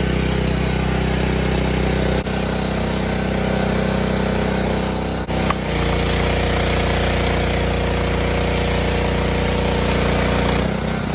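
Pressure washer running steadily, its motor hum under the hiss of foam spraying from a foam cannon, with two brief dips about two and five seconds in.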